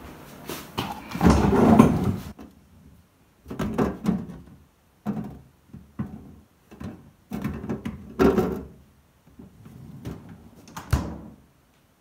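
Toshiba refrigerator's vegetable drawer slid open and later pushed shut, with plastic bags of vegetables handled inside it: a series of uneven sliding and rustling noises, the loudest about a second in, and a sharp knock near the end as the drawer closes.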